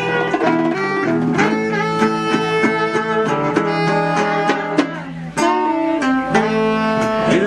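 Acoustic band playing an instrumental passage of a song led by plucked guitars, with a brief break a little past five seconds in before the playing picks up again.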